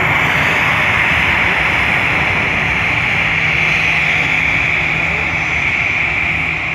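Jet engines of an Airbus A320-family airliner at taxi power as it taxis past close by: a loud, steady high-pitched whine and rush.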